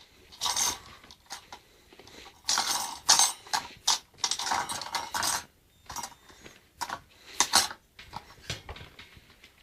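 Metal X-clamps being levered and scraped off the underside of an Xbox 360 motherboard with a metal tool: irregular metallic clinks and rasping scrapes, some short and some lasting about a second.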